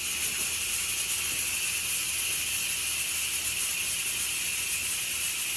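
A steady, loud high-pitched hiss, even and unbroken.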